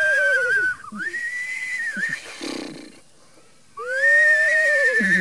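A man imitating a horse's whinny with his voice and breath: a high, whistle-like squeal held about a second with a wavering pitch, then a short rising cry and a breathy rush. A second whinny starts about four seconds in.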